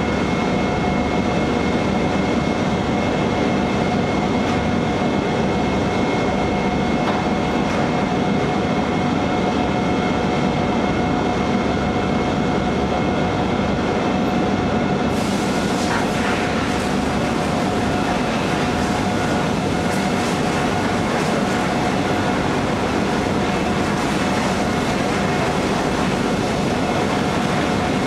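Steady industrial machinery noise of a powder coating line: a constant rumble with a few steady whining tones. A brighter hiss joins suddenly about halfway through.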